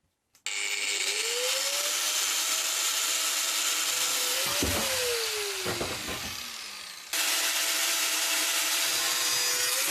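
An electric power tool cutting metal stock: the motor spins up and a loud, hissing grind of metal cutting runs steadily. It then winds down with a couple of clunks about five seconds in. Near the end it starts again suddenly and begins to wind down.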